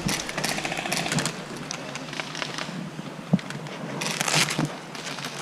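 Airsoft guns firing rapid full-auto bursts, a fast even rattle of shots in the first second or so and another burst about four seconds in.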